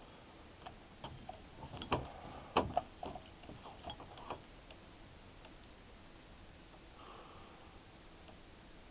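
A scattered series of light clicks and knocks, as from handling gear, bunched in the first half and strongest at two knocks about half a second apart, then only faint background. No shot is fired.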